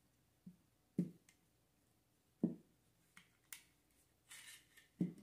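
Scattered soft knocks and clicks from a hand-held manual staple gun being handled against a padded chair seat, the firmest about a second in and halfway through, with a brief rustle of fabric a little past four seconds.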